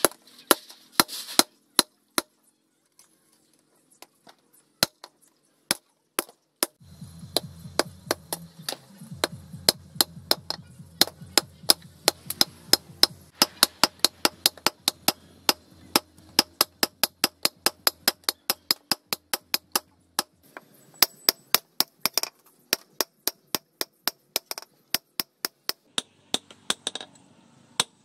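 Hand hammers striking red-hot steel on a steel post anvil as a bearing is forged into a knife blade: sharp metallic blows, a few widely spaced at first, then a steady run of about two to three blows a second, with a short break about two-thirds of the way through.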